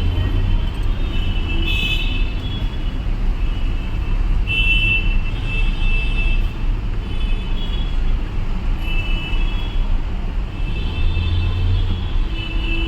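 Dense city traffic: a steady low rumble of engines, with short, high-pitched horn toots from other vehicles sounding every second or two.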